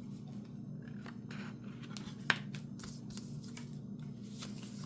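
Hands handling the album's paper cards and inserts: soft rustling and light ticks, with one sharp click a little past two seconds in, over a steady low room hum.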